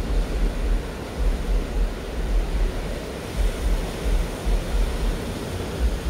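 Ocean surf breaking and washing up a sandy beach in a steady wash of noise, with wind gusting on the microphone in uneven low rumbles.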